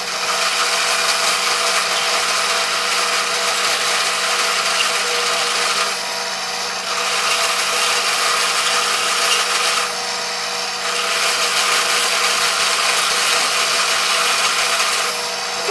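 Drill press running with its cutter biting into the plastic face of a Duncan Freehand 2 yo-yo, cutting a sticker recess: a steady motor hum under a continuous scraping, shaving noise. The cutting noise eases briefly twice, about six and ten seconds in.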